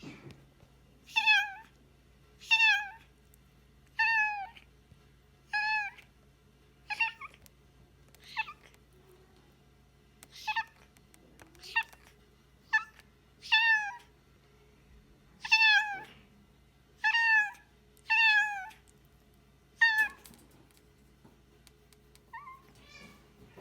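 Domestic cat meowing over and over, about fifteen short meows roughly every second and a half, each one falling in pitch, with a couple of fainter, softer calls near the end.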